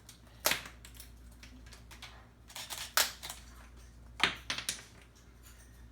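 Moluccan cockatoo chewing apart a wooden toy: sharp cracks and crunches as its beak snaps the birch and pine pieces, loudest about half a second, three seconds and four seconds in, with softer clicks between.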